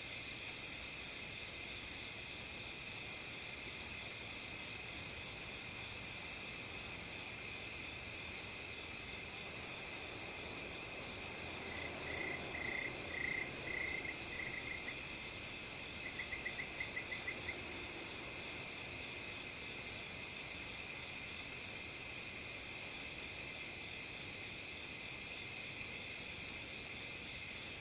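Autumn chorus of crickets, bell crickets among them, trilling steadily in several overlapping high pitches. Partway through, a few louder chirps sound, followed a few seconds later by a quick trill.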